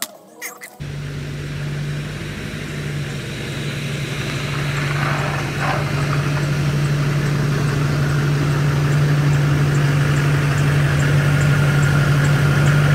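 Chevrolet Silverado's 6.6-litre Duramax diesel V8 running at low speed as the pickup drives slowly up, a steady low hum that grows louder as it comes closer.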